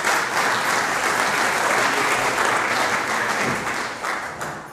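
Audience applauding in a large room, dying away near the end.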